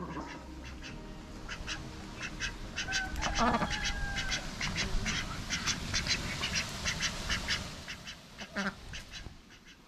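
Domestic ducks quacking in a quick run of short calls, about four a second, that dies away about eight seconds in.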